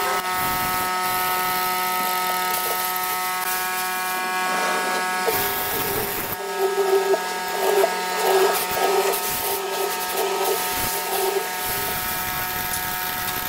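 Bench hollow-chisel mortiser's electric motor running with a steady whine while its square chisel and auger are plunged into a wooden beam. About halfway through comes a run of short, uneven cutting bursts as the chisel chews out the mortise.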